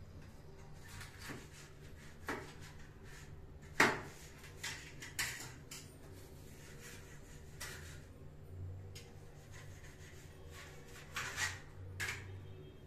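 Scattered light knocks and clatters of sheet-metal parts being handled inside a kitchen chimney hood during cleaning, the sharpest knock about four seconds in and a few more near the end, over a low steady hum.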